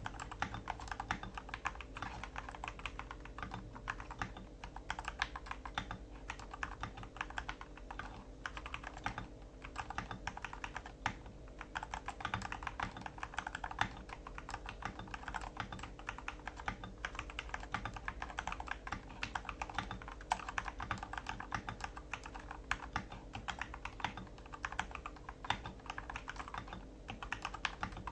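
Typing sound test on an MK870 mechanical keyboard with Gateron Cap Milky Yellow linear switches and OEM-profile PBT shine-through keycaps. The keys clack in fast, continuous runs, broken by a few short pauses.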